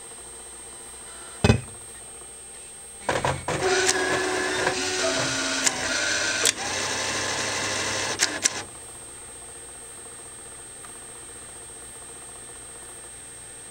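JCM bill validator in a slot machine cycling: a sharp click, then about five and a half seconds of motor whirring with a few clicks that stops abruptly, as a banknote is drawn in and stacked.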